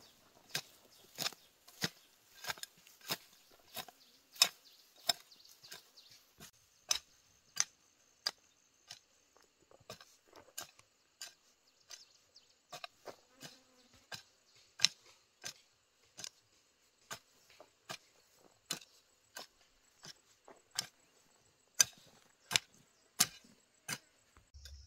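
Hand hoe blade chopping into loose, dry soil: a steady run of sharp strikes, about one and a half a second, as a furrow is cut.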